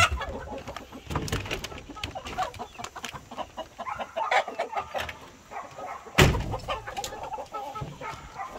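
Chickens clucking, over scattered clicks and scuffs, with a single loud thump about six seconds in.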